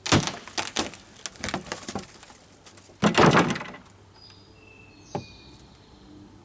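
Hammer and pry bar working a wooden deck plank loose: a quick run of sharp knocks and cracks, then a louder, longer cracking burst about three seconds in, and a single knock near the end.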